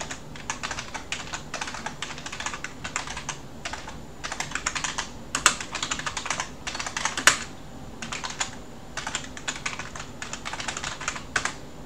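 Typing on a computer keyboard: irregular runs of key clicks broken by brief pauses.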